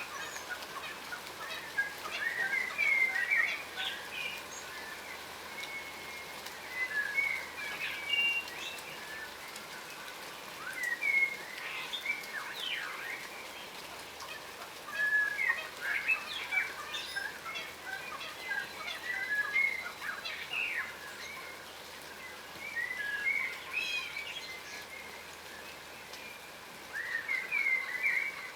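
Yellow rosellas calling while feeding: bouts of short chirps and whistles every few seconds, over a steady faint background hiss.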